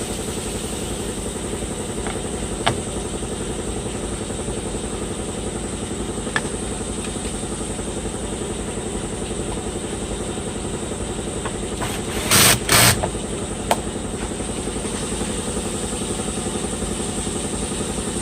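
An engine runs steadily at idle, with a few sharp clicks and two loud, short noisy bursts close together a little past the middle.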